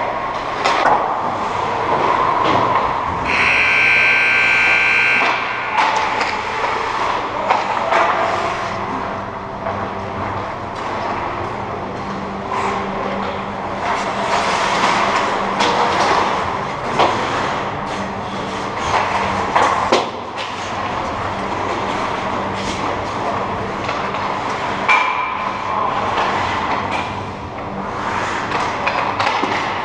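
Ice hockey play in an echoing indoor rink: skate blades scraping and carving on the ice, with sharp clacks of sticks and puck scattered throughout, over a steady low hum. A high-pitched tone sounds for about two seconds near the start.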